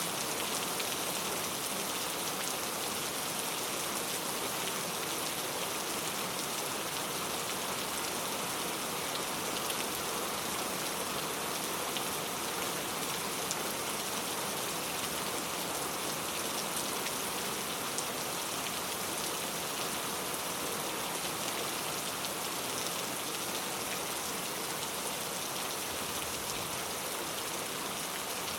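Steady rainfall, a dense even hiss of falling rain with scattered single drop hits, unchanging in level.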